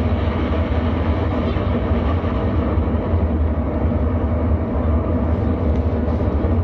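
Rocket-launch sound effect: a loud, steady, deep rumble with a layer of rushing noise above it.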